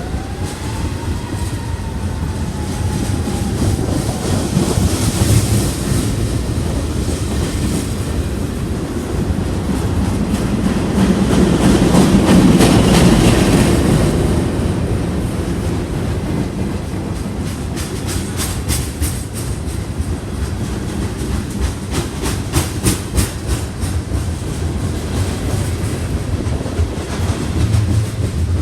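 A train rolling past, its railcar wheels rumbling on the rails, loudest about halfway through, with a short squeal at the start and a quick run of clicks over the rail joints in the second half.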